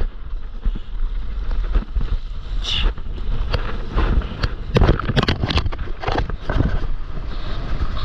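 Wind rumbling on the microphone, with repeated splashing and rushing water as a stand-up paddleboard is paddled hard onto a wave. The splashes are thickest in the middle.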